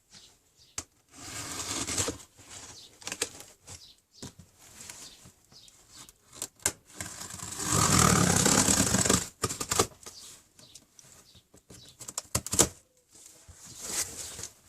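Cardboard box being opened and its packaging handled: rustling and scraping in several bursts, the longest and loudest about halfway through, with scattered knocks and a sharp click near the end.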